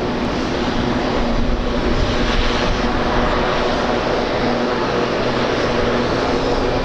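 Airliner engines running steadily with a faint steady hum, mixed with wind buffeting the microphone.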